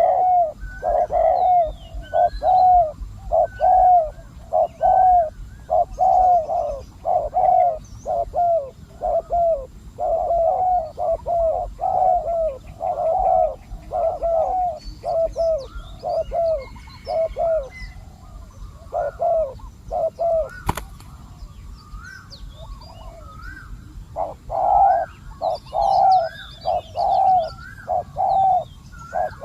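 Spotted doves cooing, a long run of low coo notes repeated one after another, with a lull of a few seconds about two-thirds through before the cooing starts again. Faint higher chirps from small birds and a single sharp click in the lull.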